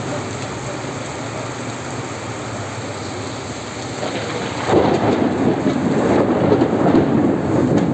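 Heavy rain falling steadily. A little under five seconds in, thunder breaks in suddenly and rumbles on, louder than the rain.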